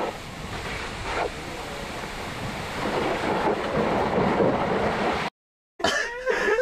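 Steady rushing noise of wind on the microphone and a loaded sled dragging over snowy lake ice. It cuts off suddenly about five seconds in.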